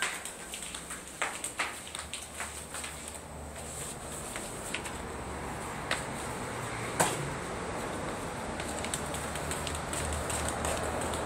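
Footsteps on a tiled floor, heard as scattered sharp taps, then a steady rushing background noise that slowly grows louder, with one sharp click about seven seconds in.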